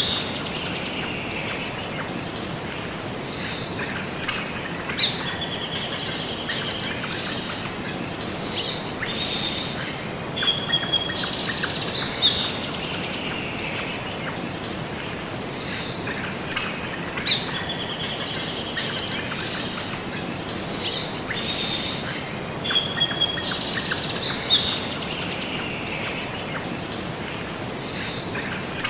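Birdsong, many quick chirps and sweeping calls over a steady noisy background. It is a recording that loops, with the same run of calls coming round about every twelve seconds.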